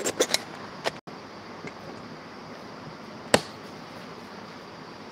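Quiet room tone with a steady hiss, broken by a quick run of sharp clicks at the start and a single sharp knock a little past three seconds in.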